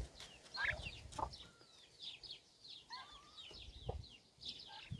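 Poultry chicks peeping: a steady run of short, high, falling peeps several times a second, with a few lower calls from grown birds mixed in.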